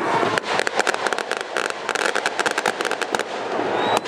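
Firecrackers going off in a rapid, irregular string of sharp pops, starting a moment in and lasting about three seconds.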